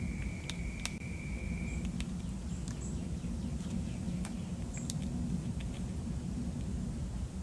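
Gray squirrel gnawing kernels off a dried corn cob: scattered short, sharp crunching clicks, over a steady low rumble of background noise.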